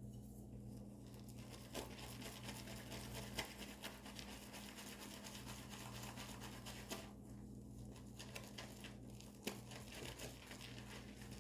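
Shaving brush whisking shave soap into lather in a bowl: a faint, rapid, crackling patter of brush strokes, pausing briefly about seven seconds in and resuming. A steady low electrical hum runs underneath.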